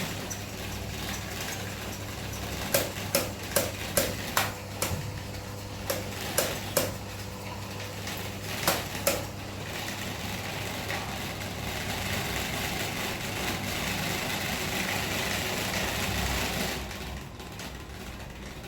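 Electric fan running with a steady hum and a rush of air. Sharp clicks come in three groups in the first half, five, then three, then two. The air noise grows louder and then drops off suddenly near the end.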